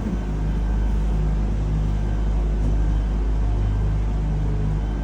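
Aerial ropeway gondola cabin running, a steady low rumble with a steady hum.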